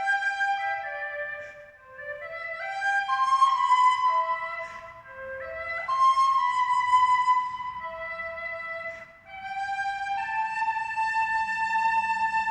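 Instrumental music: a slow melody of long held notes in phrases with short breaks between them.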